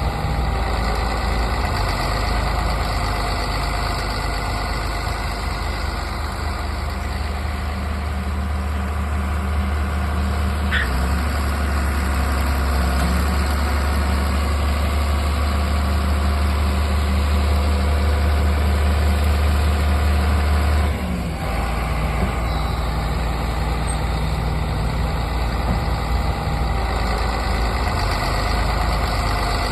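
Large diesel harvest machinery running steadily, a deep engine drone with mechanical noise above it. The low drone grows louder about eleven seconds in and drops back abruptly about twenty-one seconds in.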